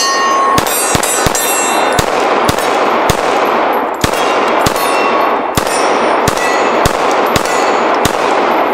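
Glock 19 Gen 5 9mm pistol fired in a steady string at steel targets, about two shots a second. The steel plates clang and ring at different pitches as they are hit.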